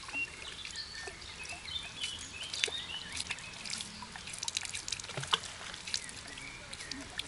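Water splashing and trickling as a person swims, many small sharp splashes over a faint steady wash. There are a few short high chirps in the first few seconds.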